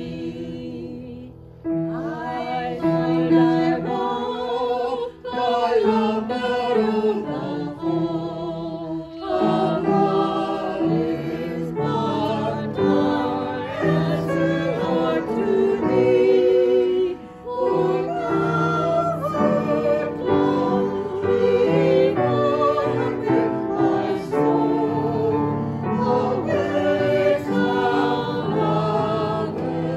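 A small group of women singing a hymn, with piano accompaniment under the voices. The music breaks off briefly about a second and a half in, then carries on.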